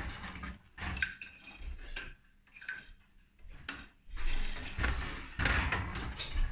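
Wooden hand loom being worked: irregular wooden clacks and knocks, growing busier in the last couple of seconds.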